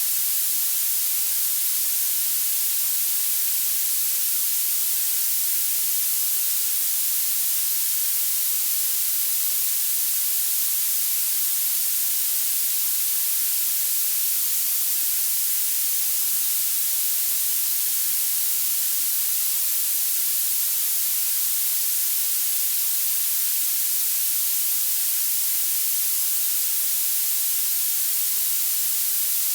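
Violet (purple) noise: a steady, unchanging hiss weighted toward the highest pitches, with almost nothing in the bass.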